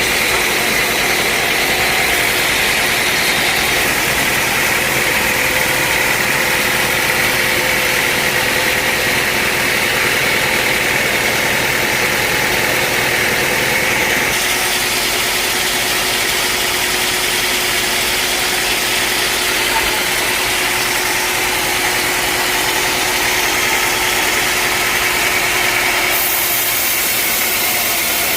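Sawmill machinery running steadily: a loud, even hiss with a steady hum underneath. The sound shifts abruptly about halfway through and again near the end.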